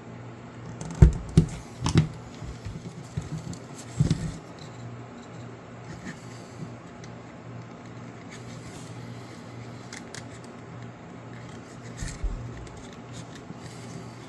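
Hand-work sounds at a workbench: a cluster of sharp knocks and clicks in the first few seconds, a couple more near the end, and scattered light clicks over a steady low hum.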